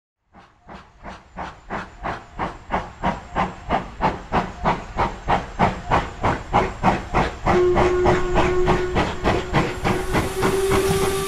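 Steam locomotive chuffing, about three exhaust beats a second, growing steadily louder as it approaches. About two-thirds of the way through its steam whistle sounds, breaks off briefly and then blows again over the chuffing.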